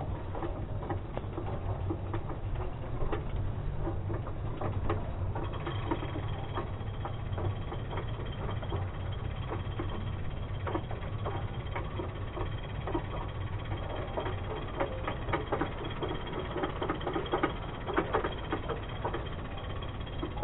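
Bicycle rolling over paving, with a steady low rumble and a run of irregular clicks and rattles from the handlebars, a little louder near the end.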